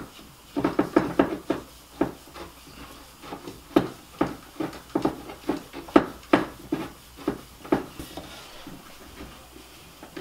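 An irregular series of short knocks and clacks as a compound bow on its stand and nearby gear are handled and shifted.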